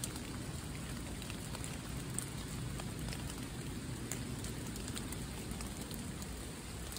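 Steady rain falling on wet leaf litter, with scattered individual drops ticking through it.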